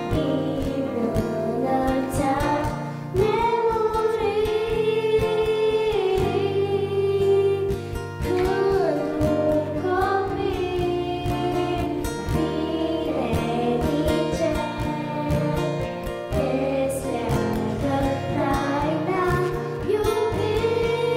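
Two young girls singing a song together through microphones, with instrumental accompaniment.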